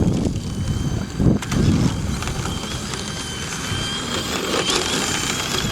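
Electric RC monster truck's motor running at speed, a steady high whine that wavers with the throttle, over a low rumbling from its run across the sand.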